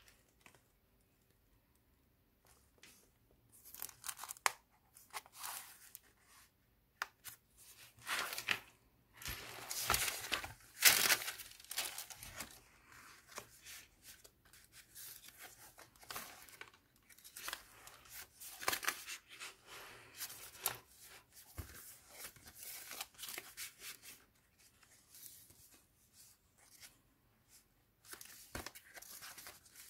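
Pages of a handmade junk journal being turned by hand: stiff paper pages with glued-in photos rustling and crackling in irregular bursts. It starts after a couple of seconds, and the loudest rustling comes about a third of the way in.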